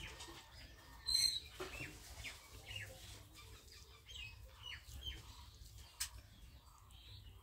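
Faint bird calls: a louder, high call about a second in, then several short falling chirps. A single sharp click comes at about six seconds.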